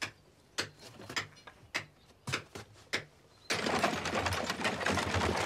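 A few separate knocks and scrapes of heavy stone on wood as the carved stone step is set on a wooden cart. About three and a half seconds in, a steady, dense rattling and clattering starts as the wooden cart rolls off over the dirt.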